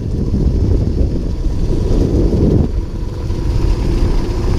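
Wind buffeting the microphone: a loud, uneven low rumble, with a faint steady tone underneath.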